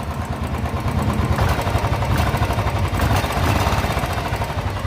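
Royal Enfield Classic 350's single-cylinder engine idling steadily on a cold start, with only a very slight tick from the valve train. The loud tappet ticking it is brought in for appears after 15–20 km of riding and is put down to the hydraulic tappets.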